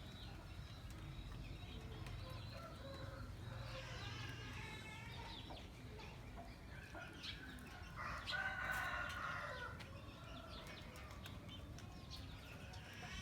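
Rooster crowing faintly, twice: once about three and a half seconds in and again about eight seconds in, the second call about a second and a half long.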